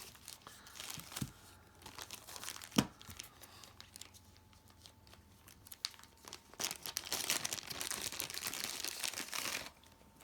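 Packaging crinkling as a box of lighters is unwrapped by hand: scattered crinkles and a sharp knock about three seconds in, then a steady spell of crinkling that stops just before the end.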